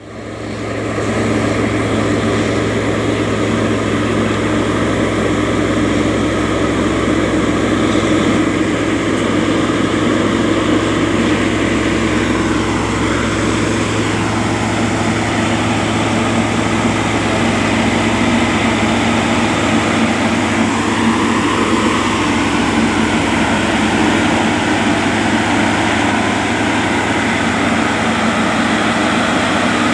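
DGS-440 dynamic track stabilizer rail machine running: a loud, steady mechanical drone with a low hum, rising quickly at the very start.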